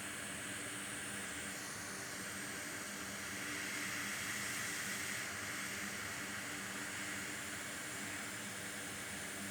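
Steady hiss of blowing air at a repair bench, with a faint low hum under it; it swells a little a few seconds in.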